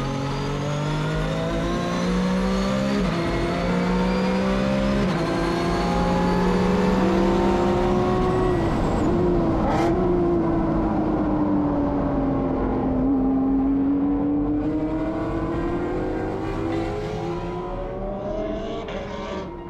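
Porsche Cup race car's flat-six engine at speed on board, climbing in pitch through two upshifts in the first few seconds. It then falls away and sweeps slowly down and back up, with a single sharp click near the middle and a drop near the end.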